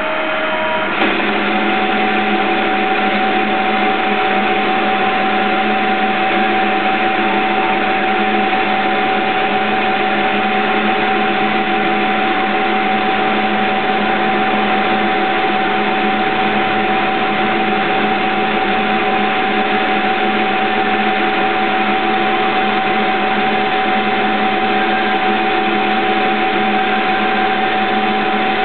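CNC-converted Myford Super 7 lathe running steadily while turning a metal spindle nose blank: a continuous motor and drive whine with a held tone. About a second in, that tone steps up in pitch and the sound gets slightly louder.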